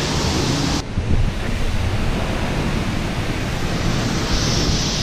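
Wind buffeting a handheld microphone: a steady rushing noise with a low rumble. The noise changes abruptly under a second in, where the recording cuts from one shot to another.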